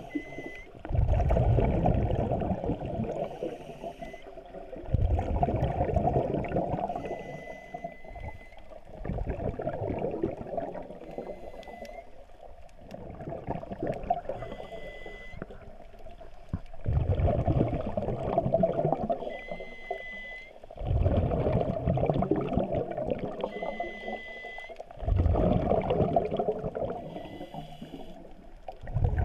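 Scuba diver breathing through a regulator, heard underwater through a GoPro HERO3 Black's housing. A short high tone with a hiss on each inhale is followed by a loud rush of exhaled bubbles, about every four seconds, seven breaths in all.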